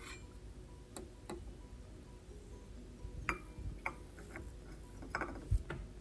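Scattered light clicks and clinks of a ceramic coffee cup being taken from under the coffee machine's spout and set down on its saucer, the firmest knock about five and a half seconds in.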